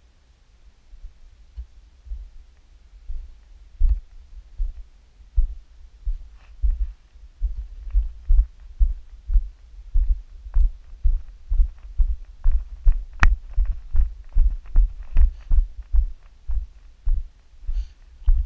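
Footsteps jolting a handheld action camera while walking over gravel. They start as light thumps and within a few seconds settle into steady low thumps about two a second, with small crunching ticks among them.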